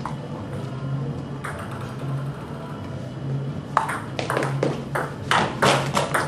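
Table tennis rally: the ball clicking off bats and table. The hits come quick and irregular from a little under four seconds in, about ten of them in two and a half seconds, over a steady low hum.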